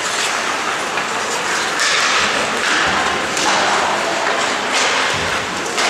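Ice hockey skates scraping and carving across the ice in repeated swishes, with occasional knocks of sticks and puck, echoing in an indoor rink.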